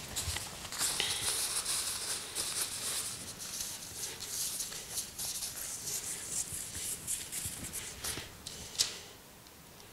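A paper towel rubbing and rustling over a metal tin lid as it smears a film of oil across it, in many quick scratchy strokes. There is one sharp click near the end.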